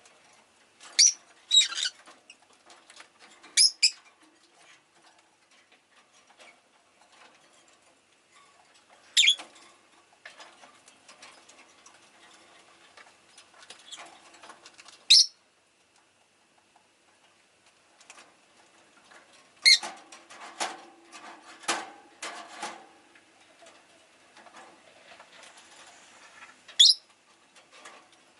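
Rosy-faced lovebird giving short, sharp, high chirps, singly or two close together, every few seconds. About twenty seconds in there is a run of small clicks and rustling.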